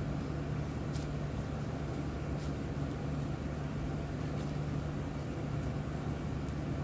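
Steady low machine hum at a few fixed pitches, the kind given off by kitchen refrigeration or air conditioning, with a few faint short clicks.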